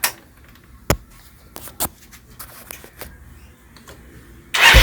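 A few sharp clicks, then about 4.5 seconds in the Yamaha Mio Sporty 110cc scooter's single-cylinder engine starts suddenly on the starter and runs with an even low pulse. It starts at once, the sign that cleaning the clogged carburetor has cured its hard starting.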